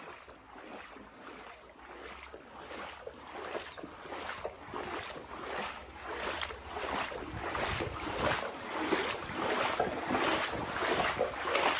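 Water splashing in a regular rhythm, about two strokes a second and growing louder, like footsteps wading through floodwater.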